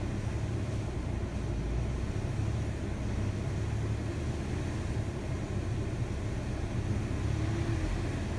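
2003 Saturn L200's 2.2-litre four-cylinder engine idling in park with the AC running, the idle unsteady as the AC compressor clutch cycles on and off. The owner takes the cycling for a low refrigerant charge caused by a leak.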